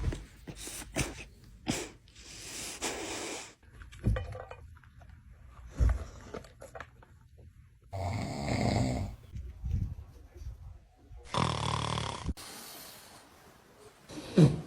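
A sleeping dog snoring: long noisy breaths a few seconds apart, with a few soft clicks between them and a brief loud sound near the end.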